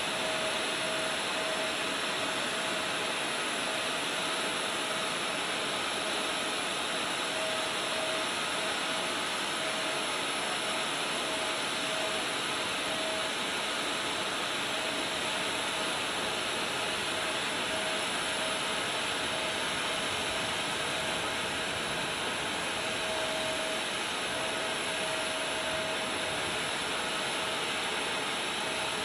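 Steady jet turbine running: an even rushing roar with a high whine over it and a faint tone that comes and goes.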